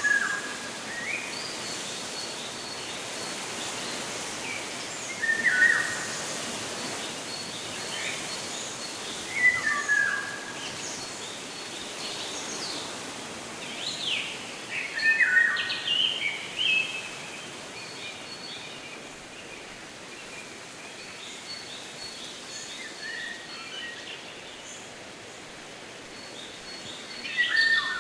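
Birds chirping and singing over a steady background hiss: short phrases every few seconds, the loudest about 5, 10 and 15 seconds in and again near the end, with a faint high note repeated in between.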